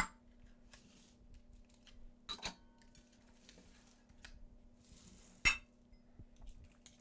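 A metal spoon clinking and scraping against mixer beaters and a stainless steel bowl as thick cake batter is scraped off. There are a few sharp clinks, the loudest about five and a half seconds in, with soft scraping between them.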